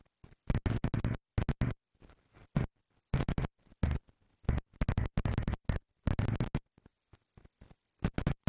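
Motorcycle riding sound, a Honda Varadero XL 1000's V-twin engine with wind, stuttering in and out. The audio is cut into many short fragments with near-silent gaps between them.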